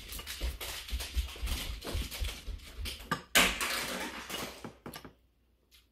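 Close-up eating sounds: chewing and crunching on roast chicken, with crackles and taps as hands pick at the food. The loudest crunch comes a little after three seconds in, and the sounds stop about five seconds in.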